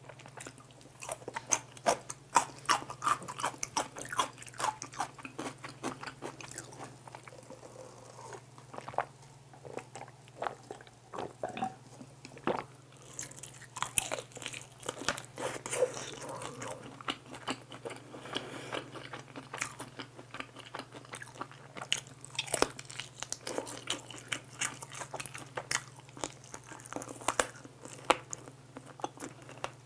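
Close-miked eating: a cube of pickled radish crunched at the start, then crisp bites and chewing of sticky soy-glazed fried chicken wings, many sharp crunches coming irregularly.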